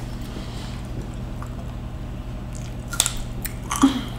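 Wet chewing and eating mouth sounds at the table, with a few short sharp clicks about three seconds in and just before the end, over a steady low hum.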